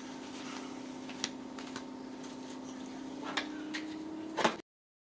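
Cordless drill-driver motor running steadily while driving screws, its pitch rising slightly about three seconds in, with a few light clicks; the sound cuts off abruptly near the end.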